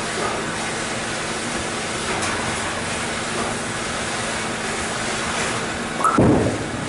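Steady noisy din of a bowling alley, then about six seconds in a bowling ball is released and lands on the lane with a loud thud.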